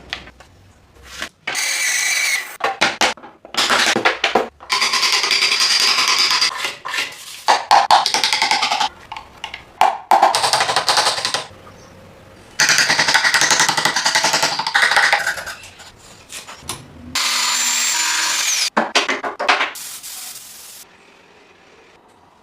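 Woodworking power tools running on wood in about half a dozen short, loud stretches, each starting and stopping abruptly, with brief quieter gaps between.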